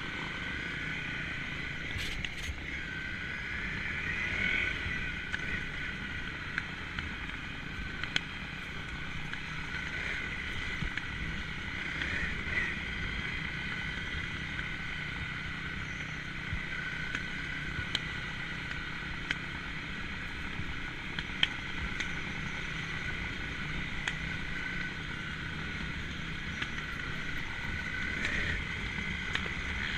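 Honda CRF single-cylinder four-stroke trail bike running steadily at low speed on a rough lane, heard from on the bike, with a few brief swells of throttle. There are occasional sharp clicks and knocks.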